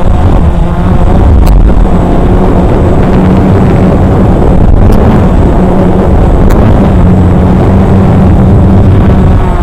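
Small drone's electric motors and propellers running steadily in a hover, a loud, even hum with wavering tones over a heavy low rumble of prop wash and wind on the microphone.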